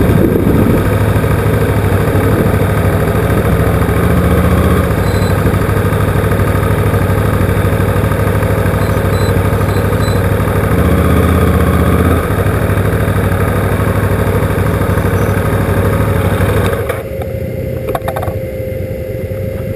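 KTM motorcycle engine running at low speed as the bike rolls slowly over a gravel track, with a steady low engine note. Near the end the engine note drops away and the overall sound falls quieter as the bike comes to a stop.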